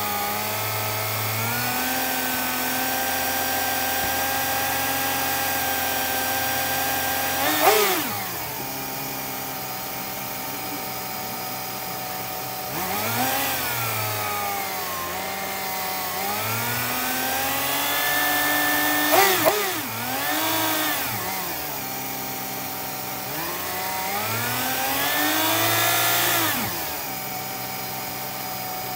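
BMW E36 323i's 2.5-litre straight-six idling steadily as it warms up, with the throttle opened by hand about five times, each rev rising and falling back to idle, some short blips and some held for a couple of seconds.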